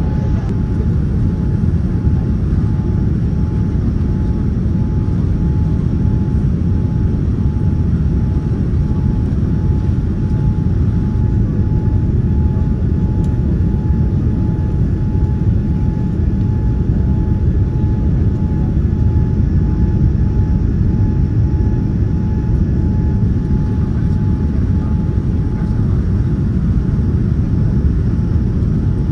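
Boeing 787-9 cabin noise heard from a window seat over the wing on approach with flaps extended: a steady low rumble of engine and airflow noise, with a faint steady whine above it.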